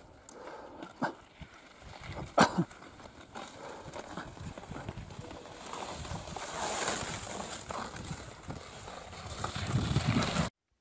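Ski-touring skis and poles on crusty snow: a few sharp clacks in the first three seconds, then a steady scraping hiss of skis sliding over the snow that grows louder and cuts off suddenly near the end.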